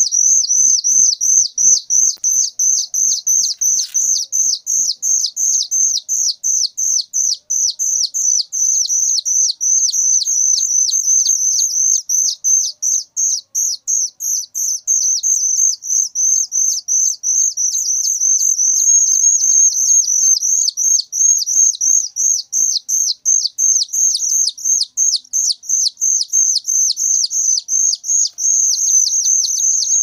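Ciung batu (whistling thrush) nestlings begging for food: an unbroken, very shrill chorus of short high-pitched calls, about three a second.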